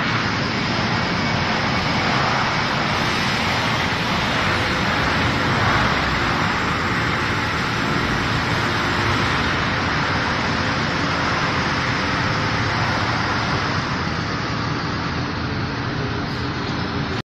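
Steady din of factory machinery: an even rushing noise with a faint hum underneath.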